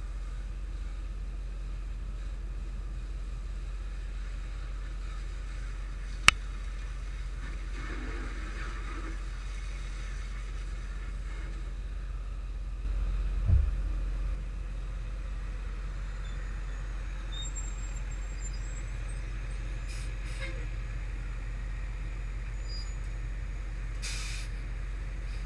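Steady low rumble of an idling vehicle engine, heard from inside the cab, with a sharp click about six seconds in, a low thump around thirteen seconds and a short hiss near the end.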